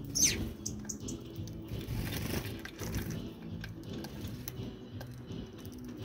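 Background music with low held notes. Just after the start comes a short high chirp that slides quickly downward, with a few faint clicks after it.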